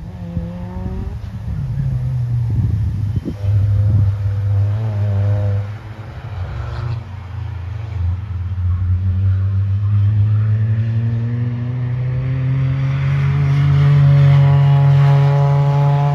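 Several cars' engines revving and changing gear on a racing circuit, the pitch rising and dropping as they accelerate and brake. Near the end one car's engine climbs steadily in pitch and grows louder as it comes closer.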